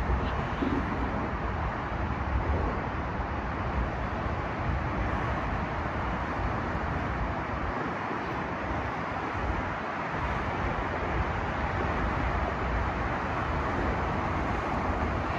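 Steady outdoor rumble with wind gusting on the microphone, the low end rising and falling unevenly.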